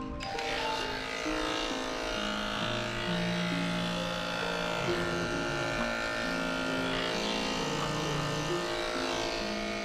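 Electric dog-grooming clippers running with a steady buzz as they trim matted hair on a dog's ear, over background music.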